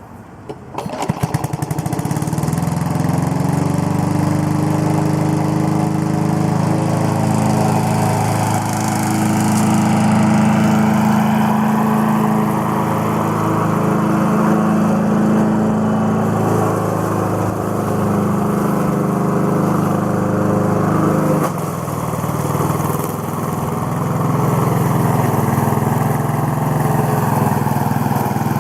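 1986 Craftsman Eager One 4.0 hp lawnmower engine pull-started, catching on the first pull about a second in, then running steadily at full throttle. Its sound dips briefly about three quarters of the way through before settling back.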